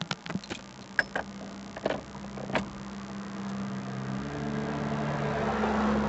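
A few sharp metal clicks and clinks in the first few seconds as tools and parts are handled at the steering hub, then a steady low engine hum that steps up slightly about four seconds in and grows louder toward the end.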